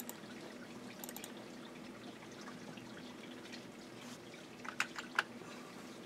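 Computer mouse buttons clicking: a few quick faint clicks about a second in and a louder run of three near the five-second mark, over a low steady hum.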